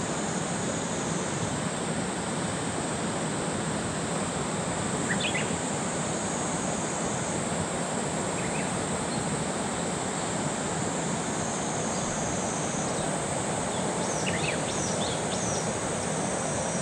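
Mountain river water rushing steadily over rocks, a constant broad rush. A few short high chirps come through about five seconds in and again near the end.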